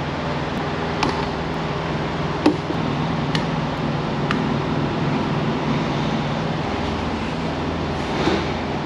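Four sharp clicks as small LED lights are pushed into rubber grommets in a metal light panel, over a steady low mechanical hum.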